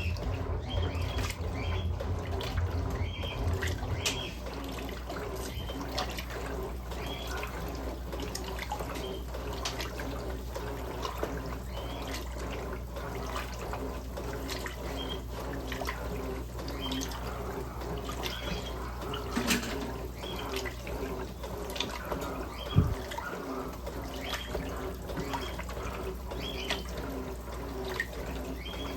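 Electrolux LM08A top-load washing machine running with water sloshing in the tub. A low hum drops away about four seconds in, and there is one sharp knock about three quarters of the way through.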